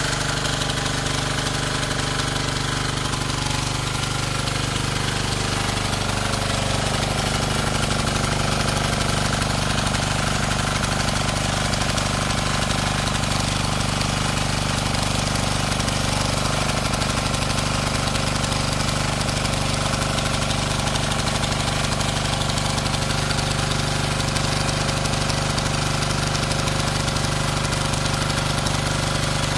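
Diesel engine of a Bertolini 215 walk-behind tiller running steadily. Its pitch shifts during the first several seconds, then holds even.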